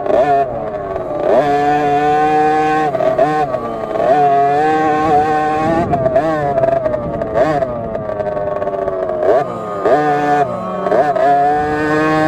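KTM SX50 two-stroke minibike engine heard on board, held at high revs with a brief dip and rise in pitch every second or two as the throttle is rolled off and back on.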